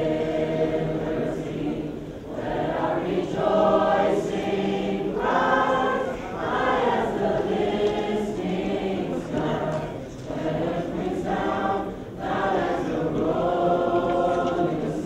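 A choir singing together in long held phrases, with short breaks between phrases every few seconds.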